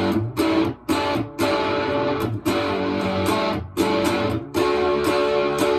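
Electric guitar played through a Harmonic Percolator-style fuzz pedal prototype: thick, distorted chords strummed and then choked off, with about six short stops.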